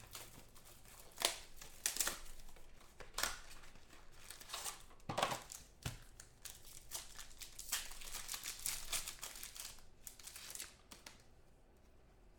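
Foil wrappers of Select football trading-card packs crinkling and tearing under the hands, in irregular crackles, dying down near the end.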